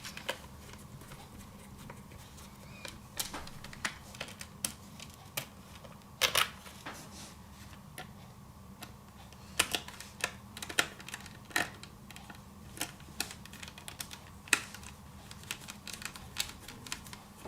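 Irregular clicks and taps of small plastic and metal laptop parts being handled, as a hard drive caddy is fitted into a laptop's DVD drive bay. The clicks come a few to the second, with several louder snaps, over a faint steady hum.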